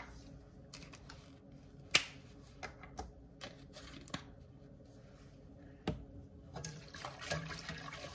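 Scattered small clicks and knocks of kitchen utensils, the loudest about two seconds in. Near the end a wire whisk starts stirring warm milk in a pot, a soft liquid swishing with light taps of the wires.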